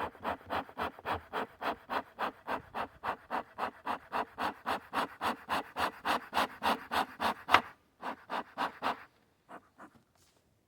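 Bee smoker's bellows being pumped rapidly, about three to four short puffs of air a second, to get the freshly lit fuel burning. The puffing stops about nine seconds in, with a few scattered puffs after.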